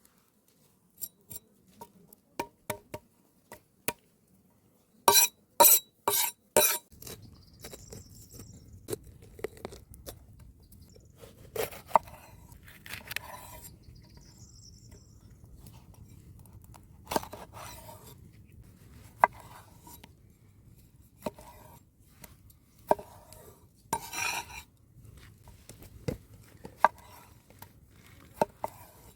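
Food preparation with utensils: scattered sharp knocks and clinks, like a knife chopping on a board and tools set against dishes, with a run of four loud strokes about five seconds in and a few short scrapes.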